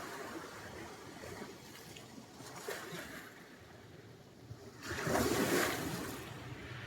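Sea surf washing on the shore, with one louder wave surging and breaking about two-thirds of the way through.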